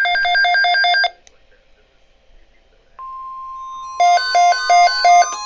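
Electronic alert tones. A rapidly warbling two-tone alert, about six pulses a second, cuts off about a second in. About three seconds in a steady single tone starts, and a second later quick synthesized beeps of changing pitch sound over it.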